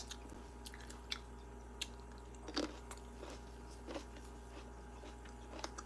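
A person chewing green grapes: faint, scattered small crunches and clicks.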